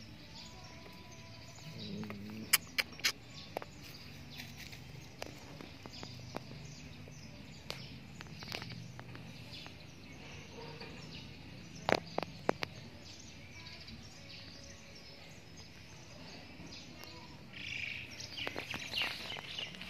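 Outdoor ambience with birds chirping in the background, and a few sharp clicks about two to three seconds in and again around twelve seconds.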